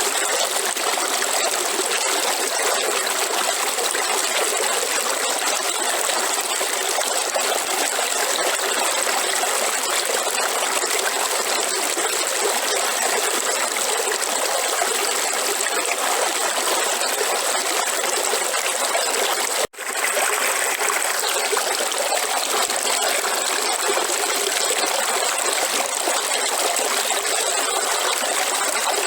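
A river flowing steadily, with rushing and trickling water. The sound cuts out for a split second about two-thirds of the way through, then resumes unchanged.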